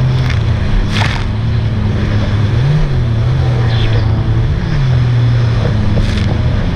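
Sea-Doo 300 jet ski's supercharged three-cylinder engine running under way, its pitch rising and falling several times as the throttle changes, with brief whooshes of spray or wind about a second in and near the end.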